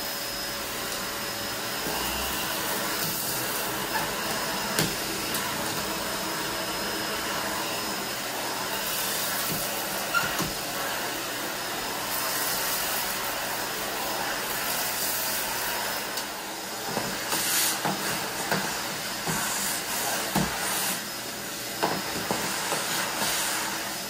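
Dyson DC21 canister vacuum running steadily with its floor head: a rushing-air hiss with a steady whine. Debris rattles and clicks as it is sucked up, more often in the last several seconds.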